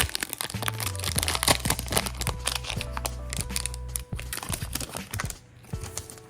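Foil trading-card booster pack wrapper being torn open and crinkled, a dense run of sharp crackles, over background music with a steady beat.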